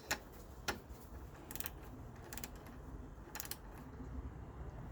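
Ratchet torque wrench clicking as it tightens a cylinder head bolt on a 196cc Lifan engine to 5 foot-pounds. The sharp clicks come singly and in short runs, about a second apart.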